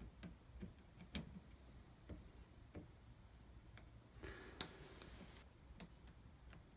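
Faint, irregular small metallic clicks and ticks of a lock pick and tension wrench working the pins of a Medeco Keymark small-format interchangeable core (SFIC). There is a short scrape about four seconds in, with the sharpest click just after it.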